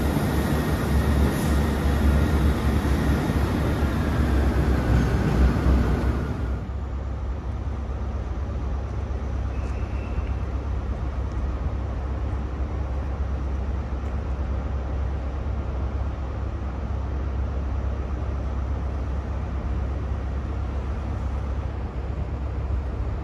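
Diesel passenger train running at the platform, loud with a steady low engine hum. About six seconds in it cuts abruptly to a quieter, steady low diesel engine hum, typical of a train idling.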